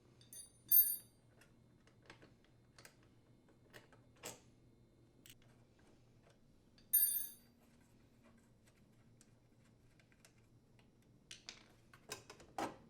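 Wrench and steel hinge parts clinking while the dishwasher door hinge's mounting bolts are unthreaded: scattered light clicks, two sharp ringing metal clinks about a second in and about seven seconds in, and a few louder knocks near the end. A faint steady hum runs underneath.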